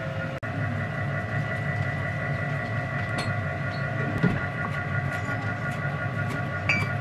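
A steady mechanical hum from a running kitchen appliance, with several tones held throughout. A few light knocks of a knife on a wooden cutting board come in the second half.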